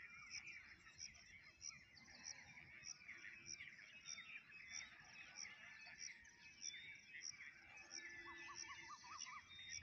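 Faint outdoor chorus of small birds chirping and twittering, with a high call repeating evenly about two to three times a second and a short quick run of lower notes near the end.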